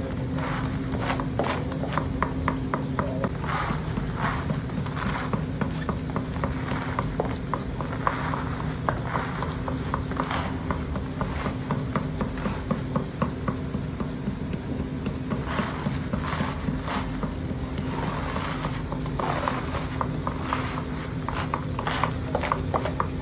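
Hard sugar drops (batashe) being scraped off a floor with a plastic scraper and swept into a pile, giving a run of irregular light clicks and rattles as the crisp drops knock together and scrape along the surface. A steady low hum runs underneath.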